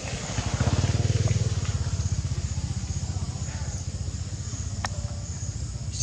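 A motor vehicle's engine running nearby: a rapid low pulse that swells about a second in, then slowly fades.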